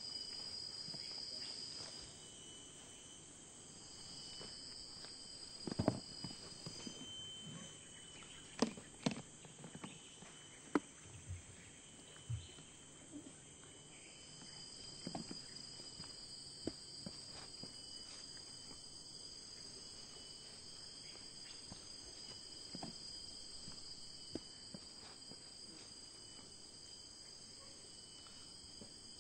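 Crickets chirping steadily in a high, even trill, which pauses for a couple of seconds early on and then resumes. Scattered short clicks and knocks sound over it, most of them in the first half.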